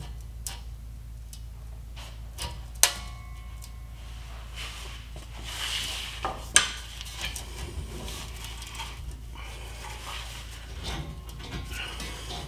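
Hand tools and flange nuts clinking and knocking against the exhaust flange studs as the diesel particulate filter is unbolted under a Ford F350. Scattered metallic clinks, with two sharper knocks about three and six and a half seconds in and a scraping stretch between them, over a steady low hum.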